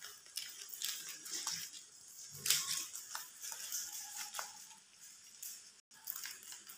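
Rabbits chewing long grass blades: irregular crisp crunching and snipping clicks, with the loudest crunch about two and a half seconds in.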